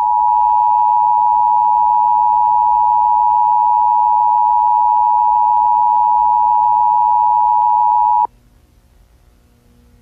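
Emergency broadcast attention tone: a single loud, steady tone just under 1 kHz, held for about eight seconds and then cutting off suddenly, leaving only a faint low hum.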